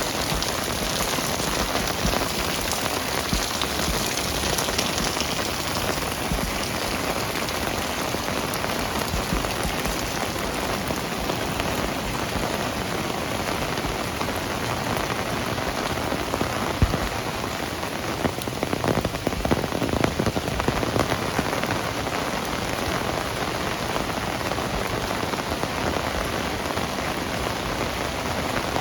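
Heavy rain falling steadily on hard surfaces, with a cluster of sharper, louder hits about two-thirds of the way through.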